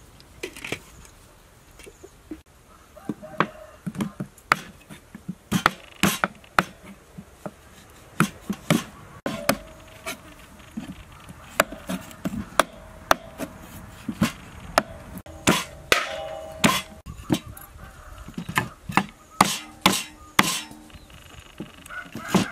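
Kitchen knife chopping on a wooden cutting board: sharp, irregular knocks, at times several a second, with short pauses between runs.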